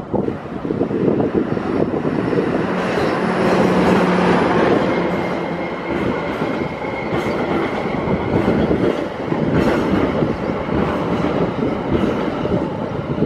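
A train passing close by, its wheels clattering over the rail joints, with a steady low tone in the first few seconds and a faint high squeal around the middle.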